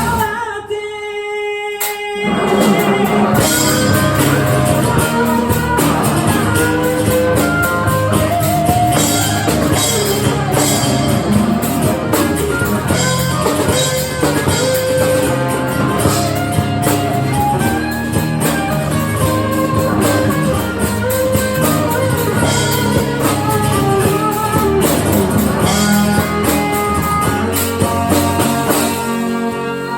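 Rock band music led by guitar over a drum kit. It thins out for a moment at the start, then the full band comes back in, and it eases into sustained tones near the end.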